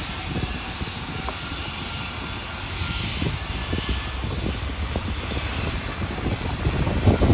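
The 1949 Baldwin 2-6-6-2 articulated steam locomotive No. 1309 running slowly, heard as a low rumble with irregular chuffs and clanks that grow louder near the end.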